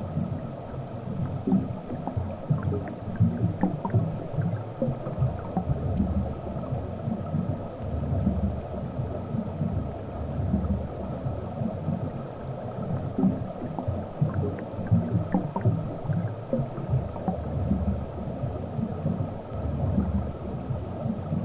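Underwater ambience picked up by a submerged camera: a steady, wavering low rumble of water with scattered faint clicks and crackles.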